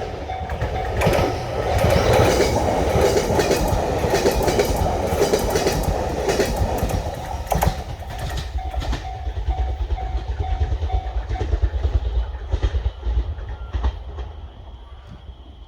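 A train runs over a railway level crossing, its wheels clacking over the rail joints, loudest about two to seven seconds in. The crossing's warning bell rings in a quick repeating ding through the passage, then stops about eleven seconds in once the train has cleared.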